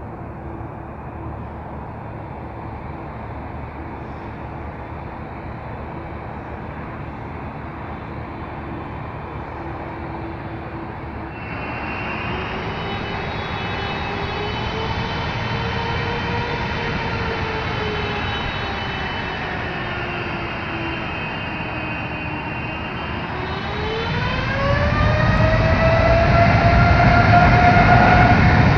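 Boeing 787-8 Dreamliner's twin turbofan engines running at low power, their whine wavering up and down. About three-quarters of the way through they spool up, the whine climbing steeply in pitch and the sound getting much louder as power comes up for the takeoff.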